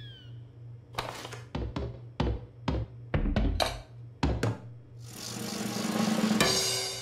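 Cartoon sound effects: a quick run of about ten light thunks and clunks as groceries are set down on a counter, followed by a swelling whoosh that peaks near the end and then fades.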